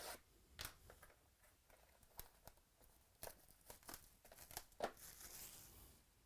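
Faint handling of trading cards and their plastic and foil packaging: scattered soft clicks and taps, then a longer crinkly rustle near the end.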